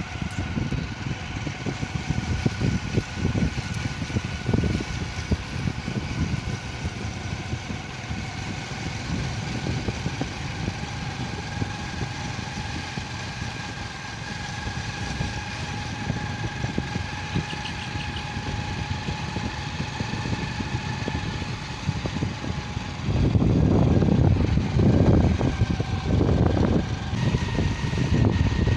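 Engine of a moving vehicle running steadily at road speed, its pitch creeping slowly upward and shifting about two-thirds of the way through. Wind rumbles on the microphone underneath, heaviest for a few seconds near the end.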